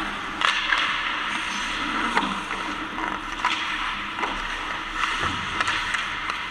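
Ice hockey skates scraping and swishing on the ice, broken by several sharp clacks of sticks and puck.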